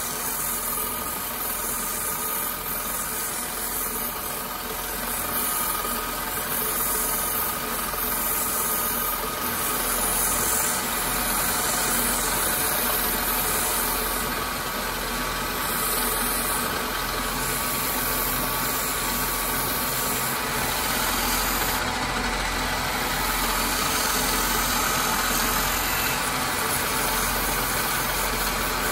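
Wood lathe running steadily with a turned wooden candlestick spinning while a strip of sandpaper is held against it, giving an even hiss over the motor's hum.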